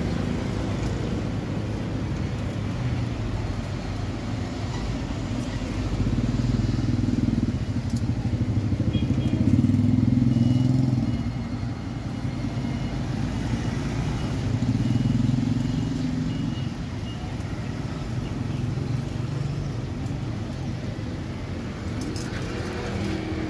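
Street traffic: engines of passing cars and motorbikes, a steady low rumble that swells and fades three times, loudest about ten seconds in.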